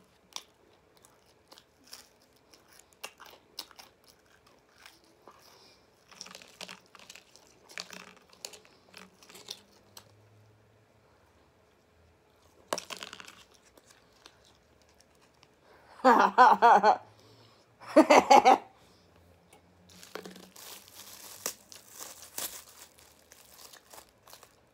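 Close-miked eating sounds: chewing fried chicken with many small wet mouth clicks and smacks, a burst of licking at a plastic sauce lid about halfway through, two loud short mouth sounds a little later, and crinkling of a plastic wrapper over the last few seconds.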